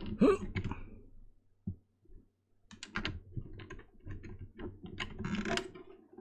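Irregular plastic clicks, taps and rattling as a cable plug is fumbled at the socket on the back of a Sheikah Eye projection light and does not go in. There is a single knock about two seconds in, then clusters of clicks that get denser toward the end.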